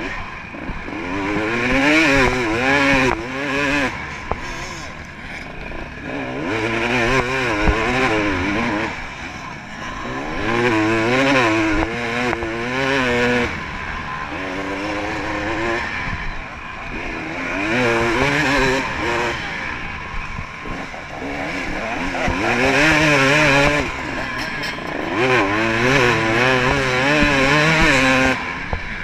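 Off-road racing dirt bike engine heard up close from the rider's helmet camera, revving up and dropping back over and over as the rider accelerates, shifts and backs off through the course.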